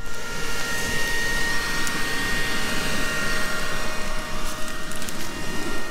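Handheld leaf blower starting up and running steadily with a high motor whine, its air blast driven into a campfire to fan the flames.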